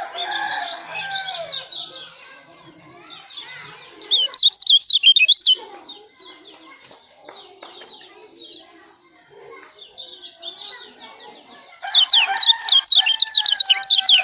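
Kecial lombok songbird singing: a steady stream of quick high chirps, with two loud bursts of fast trilled notes, about four seconds in and again near the end.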